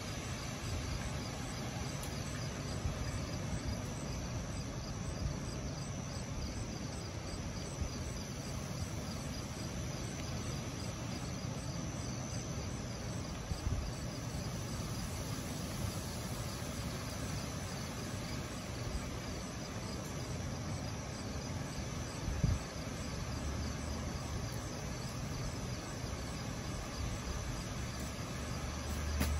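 Night insects chirping in a steady, even rhythm over a constant low outdoor rumble, with one brief low thump about three-quarters of the way through.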